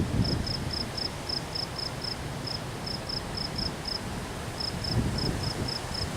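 A cricket chirping steadily, about three short high chirps a second, over a low rumble of wind and distant thunder that fades after the first second and swells again about five seconds in.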